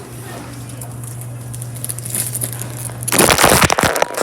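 A plastic snack wrapper crinkling and crackling loudly as it is torn open, starting about three seconds in, over a steady low hum.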